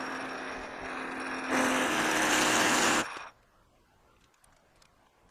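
Lathe parting tool cutting through an interrupted cut, with a steady pitched chatter over the cutting noise: the parting tool is vibrating badly against the finger grips. The sound stops sharply about three seconds in.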